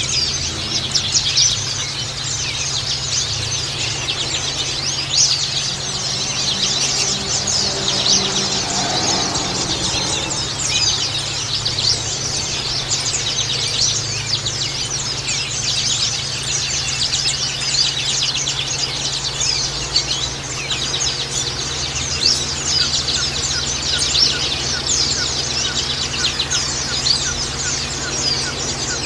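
Several white-eyes (pleci, Zosterops) chirping and twittering without pause, their fast, high notes overlapping.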